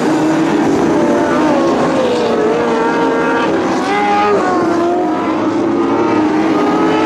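Several Lightning Sprint cars racing on a dirt oval, their engines overlapping and rising and falling in pitch as the drivers work the throttle through the turns.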